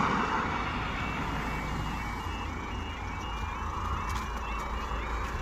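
Level crossing warning alarm starting as the road lights go from steady amber to flashing red, the sign that the barriers are about to come down: a repeating electronic warble that gets louder near the end. Under it, the tyre noise of a car driving off over the crossing fades.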